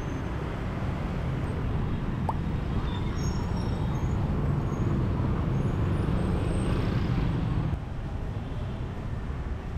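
Steady road traffic noise with a dense low rumble, a few faint short high tones over it, easing off a little near the end.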